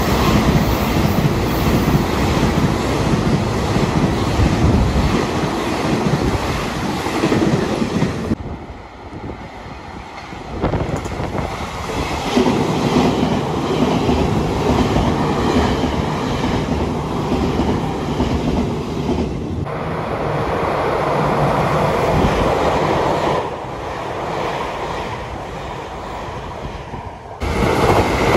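Passenger trains passing close by at station platforms: loud rumbling running noise with wheels clattering over the rail joints and some wheel squeal. The sound is a series of separate train passes joined by abrupt cuts.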